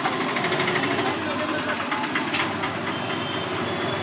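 Street background of vehicle engines and traffic, with faint voices. A few short scrapes and clicks from a spoon working a filling in a steel bowl come a little past the middle.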